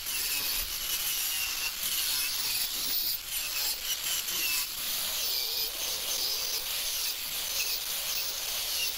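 Angle grinder with a wire wheel running against a welded steel horseshoe, scrubbing and polishing the metal: a steady, hissy scrub with a high whine that wavers.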